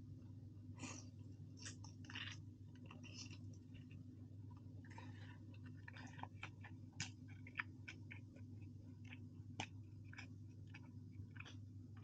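Faint eating sounds: chewing close to the microphone, with many small scattered clicks of utensils and dishes, over a low steady hum.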